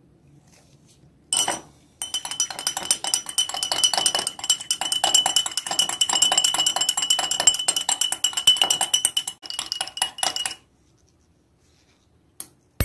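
A metal spoon stirring in a glass mug of milk, clinking rapidly against the glass for about eight seconds while the glass rings with a steady high tone. There is a single clink about a second and a half in, and a sharp click near the end as the spoon is set down on the stone counter.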